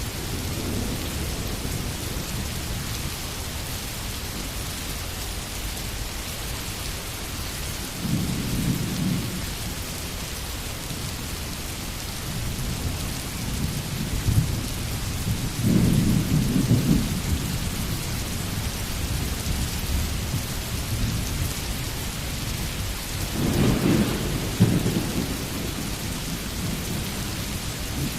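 Steady rainfall hissing, with low rumbles swelling up three times, about a quarter, half and five-sixths of the way through.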